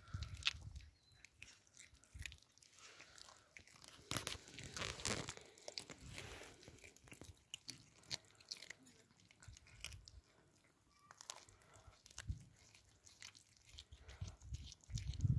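A cat chewing raw whole fish: quick, irregular wet clicks and crunches of small bites.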